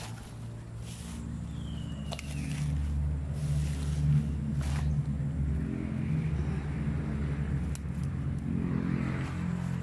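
Fern fronds and leaves brushing and rustling as someone pushes on foot through dense undergrowth, over a steady low hum that grows louder about a second in.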